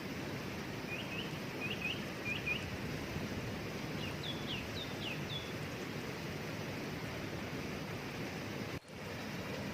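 Steady rush of a waterfall with a small bird chirping over it: three quick pairs of chirps about a second in, then a few higher chirps around four to five seconds. The sound drops out for an instant just before the end.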